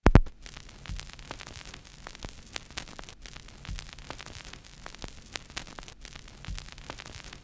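Crackling static hiss full of scattered clicks, opening with a loud hit and carrying a dull low thump about every three seconds.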